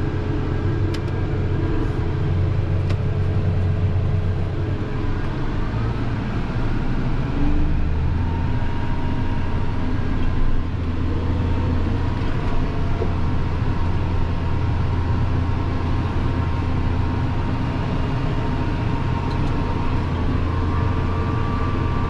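Case IH tractor running steadily under way, pulling a working John Deere round baler, heard from inside the tractor cab. A faint steady whine comes in about eight seconds in.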